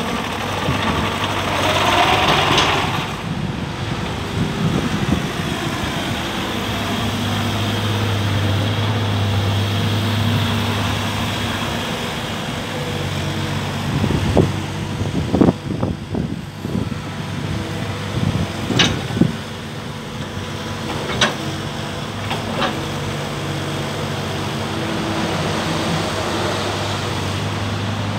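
JCB 8026 CTS mini excavator's diesel engine running steadily while the machine slews and tracks, growing louder for several seconds around the first third. Several sharp knocks sound in the second half.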